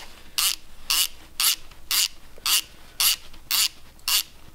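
Snap-on hand ratchet clicking in short even bursts, about two a second, as it is swung back and forth to run down a connecting rod cap bolt on a Honda B18 engine.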